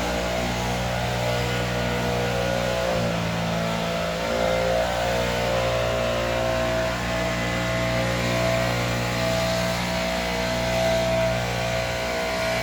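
Stihl BR 600 backpack leaf blower engine running steadily, with a brief dip and recovery in engine speed about three to four seconds in.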